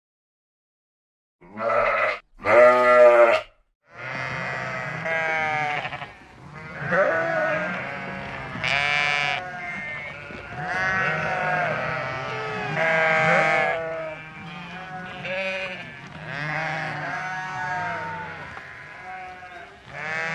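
Bleating livestock: two loud single bleats about two seconds in, then, from about four seconds, many animals of a flock bleating over one another without a break.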